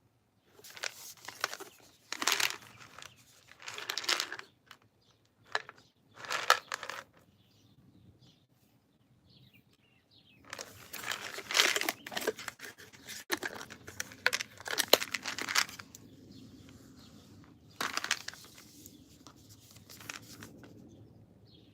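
Packaging crinkled and torn by hand in irregular bursts of rustling, with a dense stretch in the middle and a single burst near the end.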